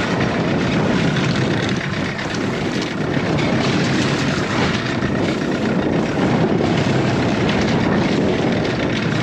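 Boat's outboard motor running steadily, kept going to hold the boat against a strong current.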